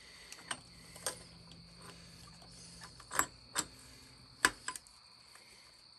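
Scattered sharp metal clicks and taps as a small gear, its shaft and a flathead screwdriver are worked into place in a motorcycle engine case, trying to line the gear up with the starter gear. The loudest clicks come about three seconds in, and again half a second and a second and a half after that.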